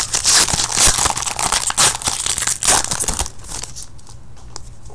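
Plastic wrapper of a trading card pack being torn open and crinkled by hand, dense and crackly for about three seconds, then dying down to softer rustling as the cards are pulled out.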